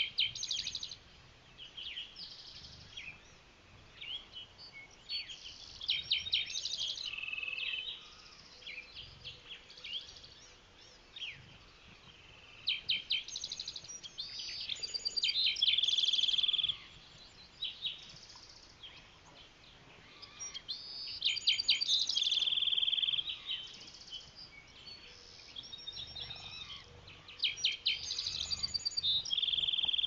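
A songbird repeats a song every six to eight seconds: a quick high trill running into a held buzzy note. Quieter bird calls come in the gaps between the songs.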